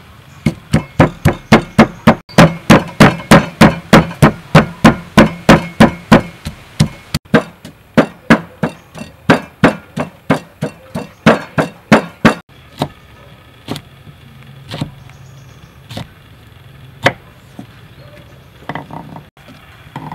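Wooden pestle pounding in a large wooden mortar, crushing garlic, lemongrass and chilies. Steady thuds about three a second for roughly twelve seconds, then slower, scattered strikes about one a second.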